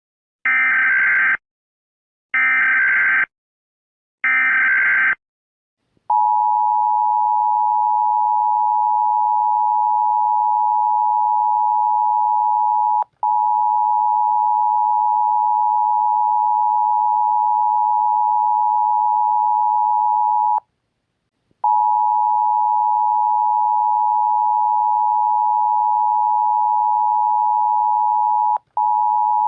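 Emergency Alert System tones: three short bursts of the digital SAME header, each a buzzing warble, then the steady two-tone EAS attention signal (853 and 960 Hz). The attention signal breaks off briefly twice and falls silent for about a second in the middle.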